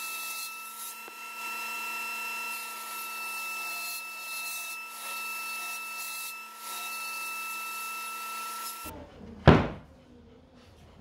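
Table saw running steadily while a beech board is ripped on edge into half-inch-thick planks. Near the end the sound cuts off, then comes a single loud knock.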